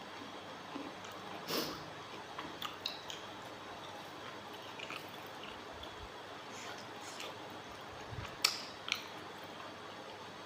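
Someone chewing and eating with wet, squishy mouth sounds, over a steady low hiss. There are a few sharp smacks or clicks, one about a second and a half in and two close together near the end.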